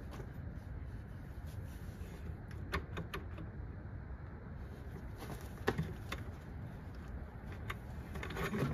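Scattered light clicks and taps of a hand wrench on engine parts, four close together about three seconds in and a few single ones later, over a low steady rumble.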